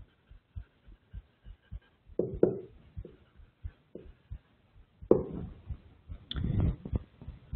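Marker writing and drawing on a whiteboard: a string of soft taps from the pen strokes, with louder scratchy strokes about two seconds in and again from about five seconds on.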